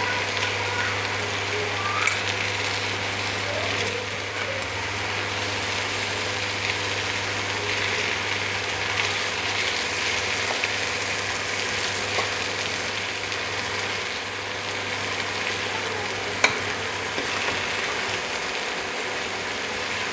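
Food frying and sizzling in a pan with a steady hiss, over a low steady hum. There is a small sharp knock about two seconds in and a louder one later on.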